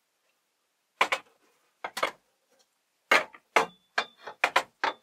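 About seven sharp knocks and clicks of hard objects being handled and set down on a hard surface: two spaced out, then five coming faster, one of them leaving a short metallic ring.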